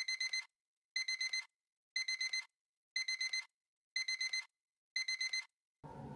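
Smartphone alarm beeping: six bursts of four quick high beeps, one burst a second, which stop shortly before the end.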